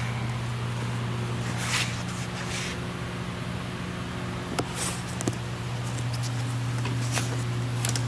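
Steady hum and hiss from a powered-on Hypertherm Powermax 45 XP plasma cutter, with a few short rustles and clicks near the middle.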